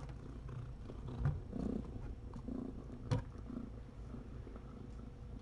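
Domestic cat purring close to the microphone, a steady low rumble, with one short knock about three seconds in.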